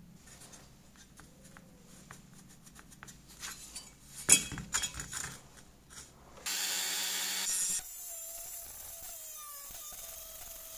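Rusty pressed-steel toy parts handled with light clicks, then set down with a loud clatter about four seconds in. After a brief loud rushing noise, a small handheld rotary tool fitted with a sanding drum runs with a steady high whine beside the rusty steel toy body.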